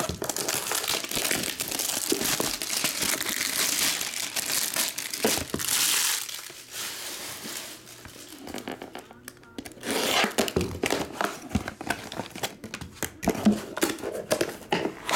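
Plastic wrapping on a sealed trading card box crinkling and tearing as the box is unwrapped and opened: a dense, steady crinkle for the first six seconds or so, then quieter, then sharper crackling from about ten seconds in.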